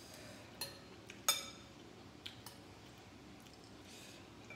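Utensils clinking against glass tableware: a few light clicks, with one brighter ringing clink about a second in.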